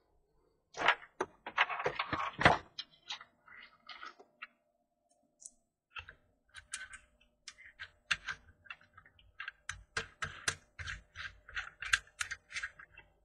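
Plastic parts of a coil-winding jig being fitted together by hand: a string of small clicks and knocks, a cluster in the first couple of seconds, a pause, then a run of quick clicks.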